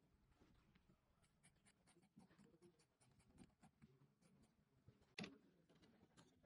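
Near silence with faint scratching and ticking handling sounds, and one sharper click about five seconds in.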